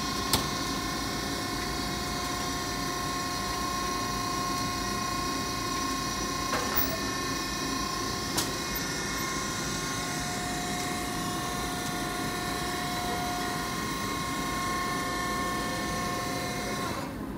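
The overhead hydraulic power unit of a 2004 Cram-A-Lot baler/compactor runs steadily while the press cycles, a constant machine hum and whine with a couple of sharp clicks. It shuts off near the end.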